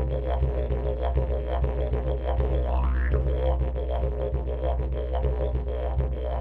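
Didgeridoo playing a steady low drone, broken into a quick rhythm of pulses, with a rising overtone sweep about halfway through.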